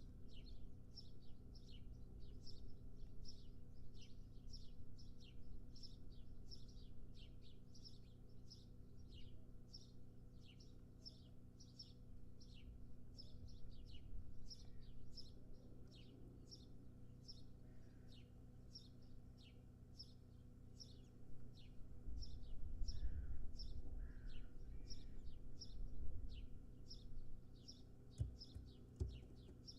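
A small bird calling with short, high, falling chirps, repeated about two or three times a second without a break. Low rumbling thumps come in about two-thirds of the way through.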